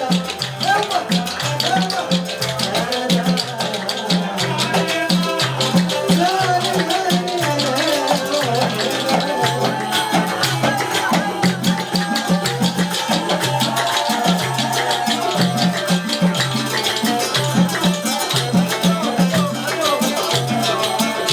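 Gulf Arabic wedding music with a steady drum pattern, a shaker-like rattle and a wavering melody line.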